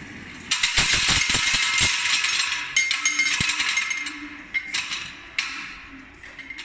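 The hinged knives of a John Deere combine straw-chopper rotor clatter and clank loudly against their mounts as the rotor on a balancing machine runs down to a stop. The clatter fades over a few seconds, then a few separate clanks follow.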